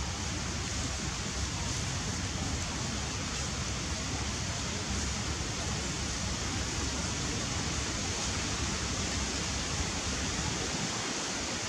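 Steady rushing background noise with a low rumble underneath, even throughout, with no distinct calls or other events standing out.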